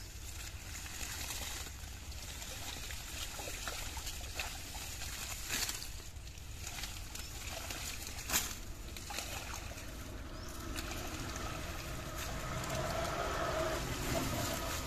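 Shallow muddy water sloshing and trickling as hands and legs move through it and clumps of water hyacinth are pulled out, with a few brief sharp sounds, the loudest about eight seconds in.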